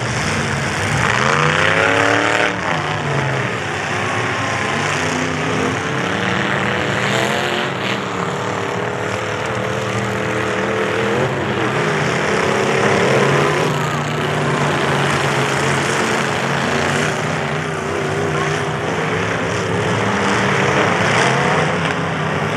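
Engines of several full-size demolition derby trucks running and revving, their pitch repeatedly rising and falling over a steady engine roar.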